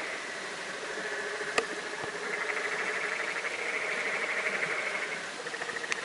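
Frogs calling with long, rapidly pulsed trills over the steady rush of a mountain creek. One trill runs about three seconds from a couple of seconds in, and another starts near the end. There is a single sharp click about a second and a half in.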